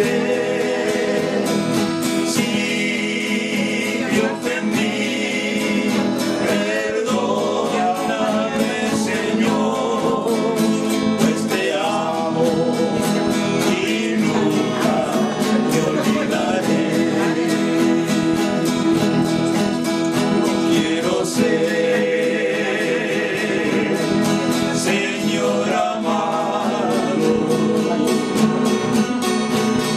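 Several men singing a religious song together, accompanied by two strummed acoustic guitars, one a classical nylon-string guitar. The voices waver in long held notes over a steady strumming rhythm.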